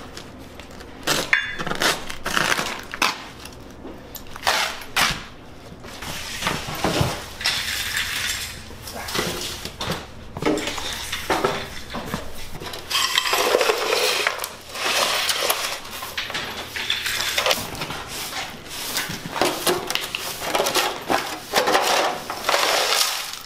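A broom sweeping loose debris across a tile floor and a plastic shovel scooping it up, with irregular clattering and scraping of hard bits of trash.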